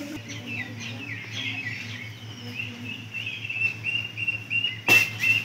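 Birds chirping: many short high chirps and quick falling notes, settling into a run of repeated notes in the second half. A single sharp knock sounds about five seconds in, the loudest moment.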